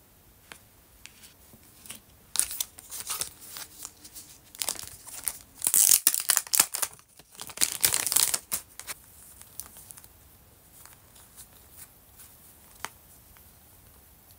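Clear cellophane bag crinkling and rustling as it is handled and opened, in loud bursts from about two seconds in until about nine seconds, loudest around six and eight seconds. After that come only light taps and rustles of paper cards being handled.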